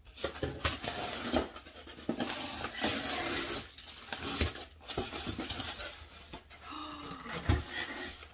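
A cardboard shipping box and its styrofoam packing being handled and pulled apart: continual rustling and scraping with scattered knocks, and one heavier thump about seven and a half seconds in, the loudest sound.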